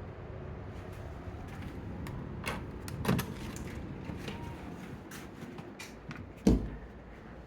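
Door clatter: a few light knocks, a louder knock about three seconds in, and a heavy low thump about six and a half seconds in.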